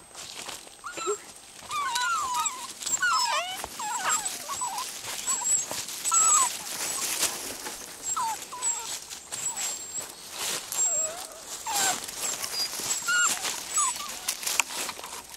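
Norrbottenspets puppies whining and yelping in short calls that rise and fall in pitch, most of them in the first half, with rustling of dry leaves.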